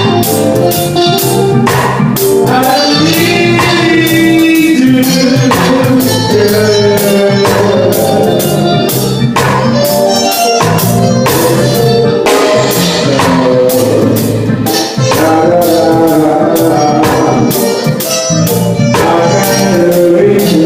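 Live band music with a singer, over a steady drum beat with keyboard and tambourine.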